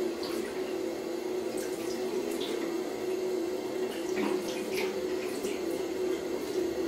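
Bathroom sink faucet running, a steady stream of water splashing into the basin, with irregular splashes as a small kitten's paws are held under the stream, most of them around four to five seconds in.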